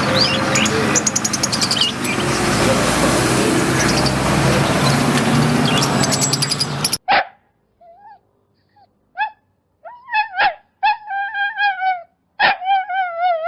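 A dog whining and yipping: short, high cries with wavering pitch, coming in a series and growing longer toward the end. They follow a loud, noisy rushing stretch that cuts off suddenly about halfway through.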